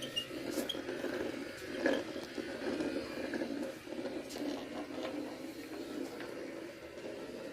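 Robot vacuum cleaner running across the floor: a steady churning of its motor and brushes, with a few light clicks and knocks, the clearest about two seconds in.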